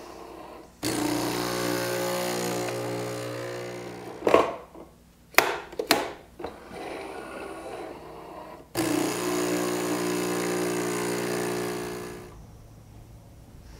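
Nespresso U espresso machine's vibratory pump running with a steady hum in two runs of about three and a half seconds each, with a few sharp clicks between them. The first run is a shot of espresso brewing into a mug; the second runs hot water through to make it an Americano.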